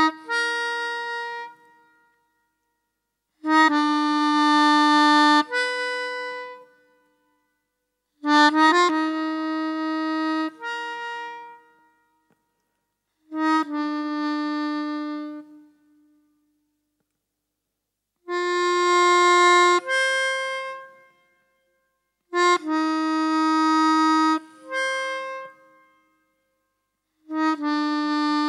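Soundtrack music on a free-reed instrument playing short phrases of a few held notes, each two to three seconds long, separated by silent pauses of about a second and a half, a new phrase starting roughly every five seconds.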